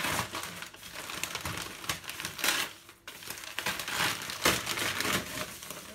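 Plastic wrapping crinkling and rustling in irregular bursts, with small clicks, as a parcel holding a tent is unwrapped by hand.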